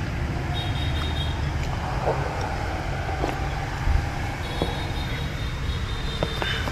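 Steady low rumble of street traffic, with a few light clicks and knocks now and then.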